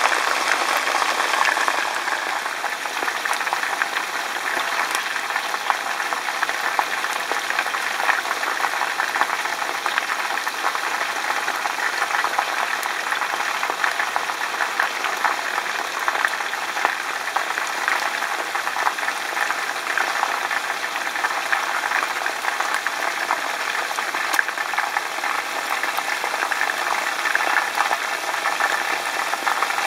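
Chicken pieces shallow-frying in hot oil in a frying pan: a steady sizzle with dense, fine crackling from the bubbling oil.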